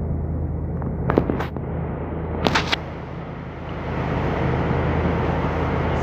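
Steady low hum of a yacht's engine running, with two pairs of sharp clicks about a second and two and a half seconds in. A rushing hiss rises over the hum about four seconds in.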